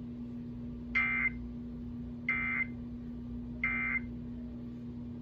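Emergency Alert System end-of-message (EOM) data tones: three short bursts of the SAME digital warble, about a second and a third apart, marking the end of the test alert. A steady low hum runs underneath.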